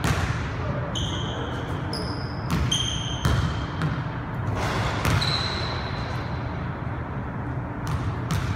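Basketball bouncing on a hardwood gym floor in irregular dribbles. Sneakers squeak briefly on the court several times, and the impacts echo in the large hall.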